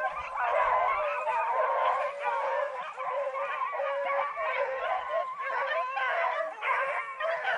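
A pack of beagles baying together, many voices overlapping without a break: the pack giving tongue as it runs a rabbit's scent trail.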